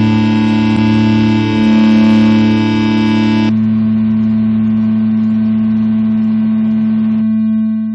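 Distorted noise-music drone of steady held tones over a bed of static. Some layers cut off abruptly about three and a half seconds in and again near the end, and the drone then fades out.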